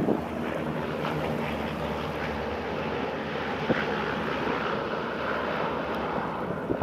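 Propeller engines of a twin-engine amphibious water bomber running steadily as it skims the lake to refill its tanks.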